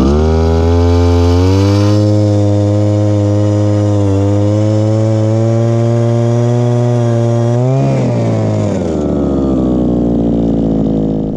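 Power ice auger's motor running at high speed while drilling through lake ice. About 8 s in the pitch jumps briefly as the bit breaks through, then falls to a lower steady speed as the auger is lifted out of the hole.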